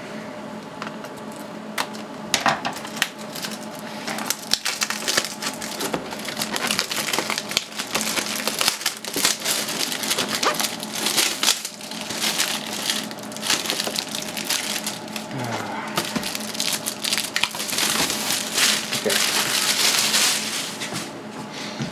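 Clear plastic shrink-wrap crinkling and crackling as it is torn and pulled off a graphics card's cardboard box, with many irregular sharp crackles.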